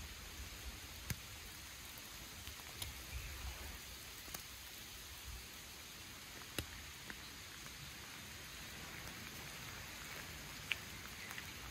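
Light rain falling on forest leaves: a soft, steady hiss with a few single drops ticking close by, the sharpest near the end.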